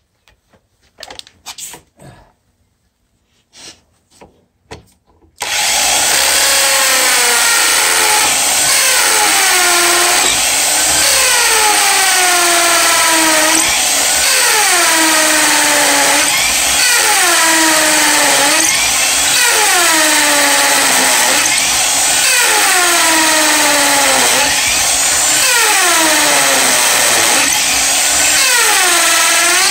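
Corded electric drill boring down through a wooden stud-wall bottom plate into the concrete slab beneath, to take an anchor. It starts about five and a half seconds in and runs continuously and loudly, its pitch sagging and recovering about every two and a half seconds.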